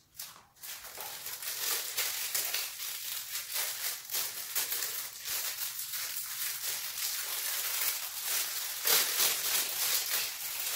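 Clear plastic packaging crinkling and crackling in the hands as a wrapped ring-light part is handled, a dense run of small crackles starting about a second in.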